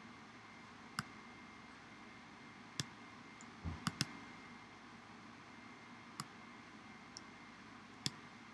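Scattered sharp single clicks of a computer's pointing-device button, seven in all at uneven gaps, two of them close together just after a soft low thump near the middle. Under them is a faint steady hiss.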